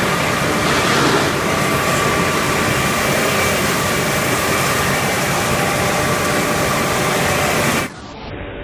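Helle circle sawmill running loud, a steady saw whine over dense machine noise as the blade works through Douglas fir. Near the end the sound drops abruptly to a quieter, duller machinery hum.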